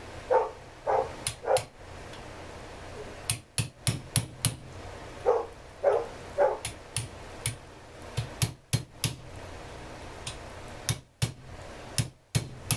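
Sharp hammer strikes in quick runs on an Echo CS-400EVL chainsaw. A dog barks in two sets of three, one at the start and one about five seconds in.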